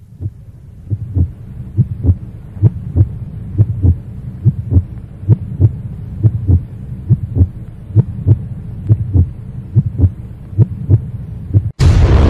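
Heartbeat sound effect: pairs of low thumps about once a second over a steady low hum, then loud rock music cuts in suddenly near the end.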